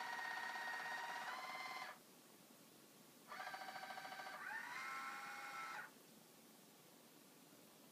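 Meade ETX-125's drive motors whining as the telescope slews under computer control. The steady whine steps up in pitch, stops about two seconds in, starts again about a second later, climbs in pitch partway through and stops near six seconds.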